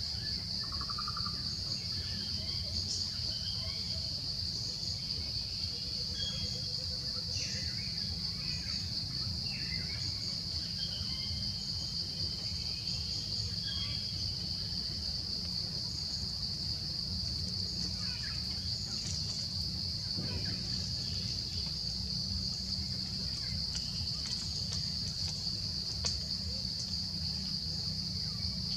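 Steady high-pitched insect drone outdoors, with a constant low rumble beneath and scattered short chirps and calls.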